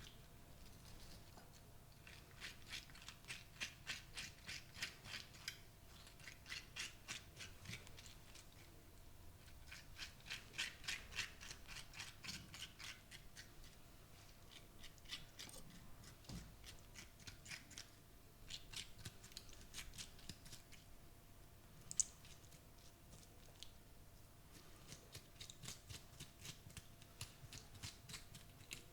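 Hair cracking: strands of hair rubbed and snapped between the barber's fingers close to the ear, making crisp crackling clicks about four a second in runs of a few seconds, with one sharper click about 22 seconds in.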